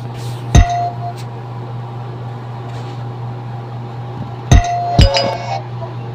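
Short clinking chime effects from a phone: one about half a second in, then two more close together near the end, over a steady low hum. These are Messenger sound-emoji sounds.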